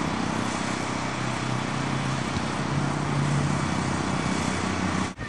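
Steady outdoor background noise: an even hiss with no distinct events, briefly dropping out just before the end.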